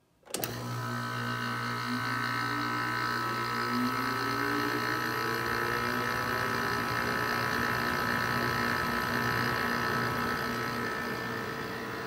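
Haier 5200 BTU window air conditioner switching on: a click about half a second in, then its rotary compressor and fan motor running with a steady hum, with a tone rising over the first few seconds as the fan comes up to speed. The compressor is kind of loud.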